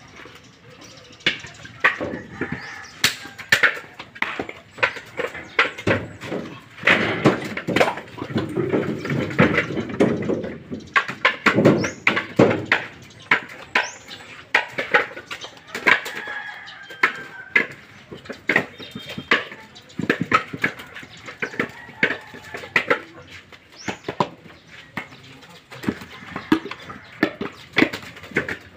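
Husked coconuts being tossed by hand into bamboo baskets and knocking against one another, a steady run of irregular hard knocks with a stretch of heavier thumps.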